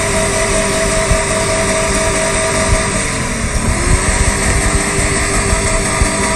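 Full-size SUV's engine running at high revs as it drives through mud, its pitch dipping briefly about halfway through and climbing back.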